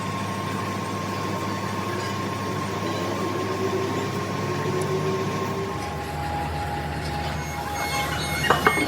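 A machine running steadily with a humming drone and a held whine, its tone shifting about six seconds in, with a few sharp knocks near the end.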